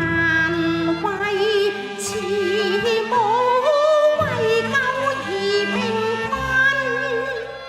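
Cantonese opera instrumental music: a wavering, sliding lead melody over sustained low chords that change every second or two.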